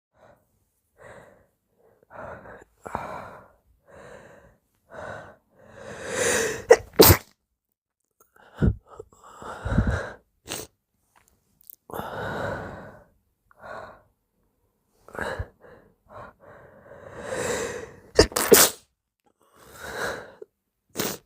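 A person's very wet sneezes: runs of short catching breaths build up to a loud sneeze about seven seconds in, and again to a second loud sneeze about eighteen seconds in, with more breathy bursts between and near the end.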